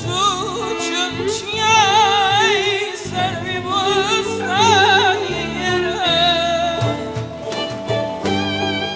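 Male singer singing a melody full of wavering vocal ornaments into a microphone, over a live band with violin. Near the end the voice stops and the instruments carry on.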